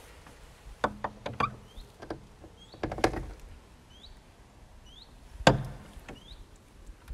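Iron ring latch of an old wooden church door clicking and clanking as it is worked, then the heavy door knocking as it is pushed open. The loudest knock comes about five and a half seconds in.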